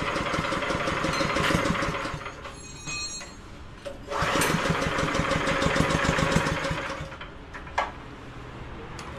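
Small 7 hp engine on a grass chopper being pull-started, twice: each time it fires and runs for two to three seconds, then stops.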